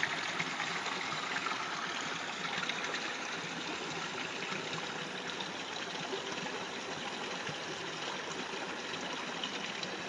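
A steady, even rushing noise like flowing water, with no clear events in it.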